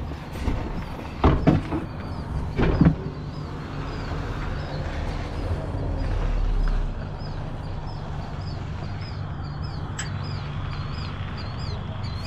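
A vehicle engine idling steadily, with a few knocks of cardboard being handled in the first three seconds. A small high chirp repeats about twice a second through most of it.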